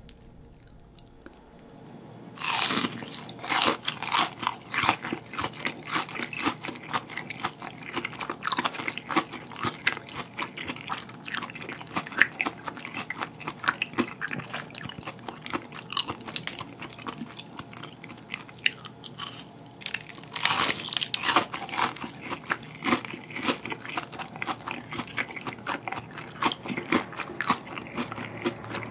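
Crunching and chewing of crispy deep-fried king prawns, close to the microphone: dense crackling of the batter as it is bitten and chewed. It starts a couple of seconds in, with louder crunching bites about 20 seconds in.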